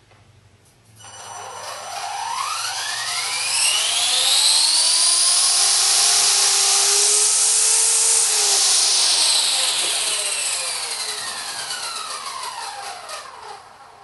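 Heli-Max Axe CP electric RC helicopter's motor and main rotor spinning up with a rising whine about a second in, holding at full speed, then winding down with a falling whine and stopping near the end.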